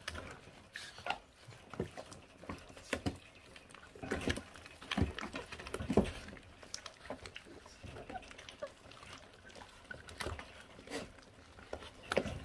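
Young puppies chewing and gnawing on raw meat and rib bone: irregular wet smacks, clicks and crunches of teeth tearing meat and working the bone, loudest around the middle and near the end.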